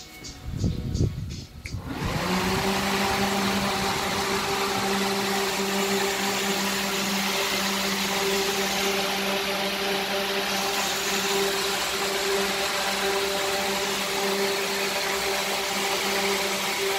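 A few knocks, then an electric cooling fan is switched on about two seconds in and runs at a steady speed: a steady hum over a rush of air.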